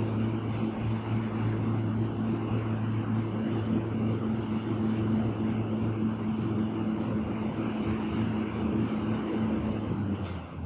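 Air bike's fan whirring steadily under an all-out sprint: a constant rush of air over a low hum.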